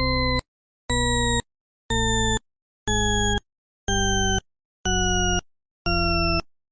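A series of electronic beeps, one per second, each about half a second long, stepping slightly lower in pitch with each beep.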